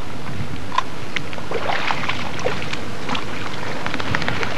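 Steady wind-like outdoor hiss with many short, scattered ticks and small splashes as a hooked fish is played to the bank in the shallows.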